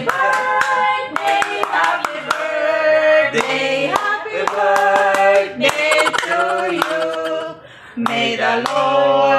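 A man singing a slow melody in long held notes, with a few sharp hand claps about six to seven seconds in.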